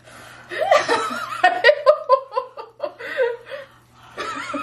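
A young woman laughing in a run of short chuckles and giggles, starting about half a second in and dying away near the end.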